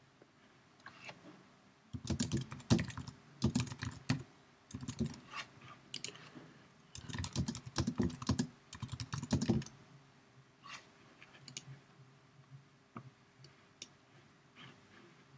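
Typing on a computer keyboard in quick runs of keystrokes for several seconds, then a few scattered single clicks near the end.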